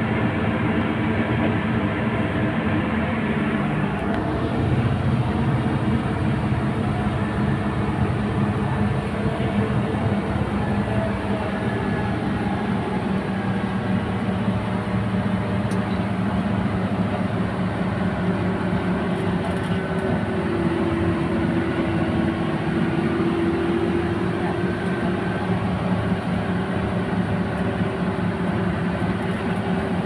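Coach bus driving, heard from inside the passenger cabin: a steady drone of engine and road noise, with the engine note changing pitch now and then as the bus moves along.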